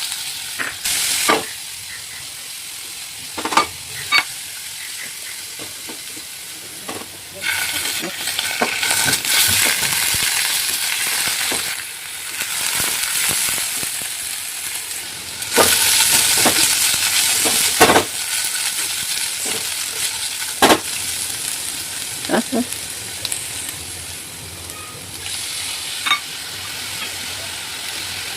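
Food sizzling in a hot frying pan while it is stirred, with sharp knocks of the spoon against the pan every few seconds. The sizzle swells louder for a few seconds at a time.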